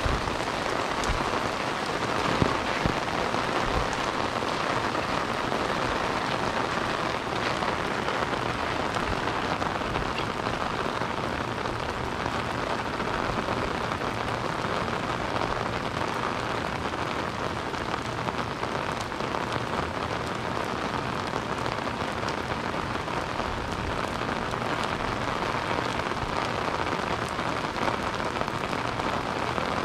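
Steady rain falling and pattering on surfaces, with a couple of louder taps about two to three seconds in.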